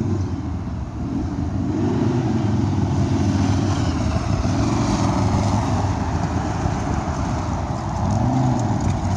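Road traffic on a wide city street: combustion-engine vehicles pass one after another over steady tyre noise, each engine note swelling and falling away as it goes by. A pickup truck passes close near the end.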